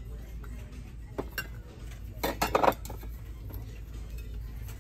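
Insulated stainless-steel tumblers and mugs with plastic lids clinking and knocking against each other and a glass store shelf as they are handled and moved. There is a single tap about a second in and a quick cluster of knocks a little after two seconds.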